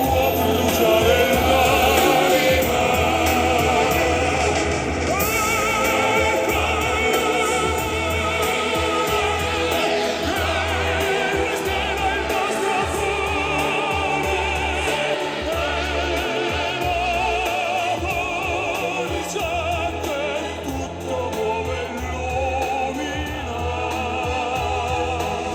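Background music: a slow, operatic-style song in which a voice holds notes with strong vibrato over a steady accompaniment.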